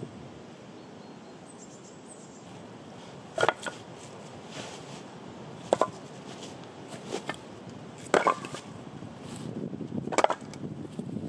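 Wooden spoon knocking against the side of a stone bowl of stew as it is stirred: four sharp knocks roughly every two and a half seconds, over a steady low background noise.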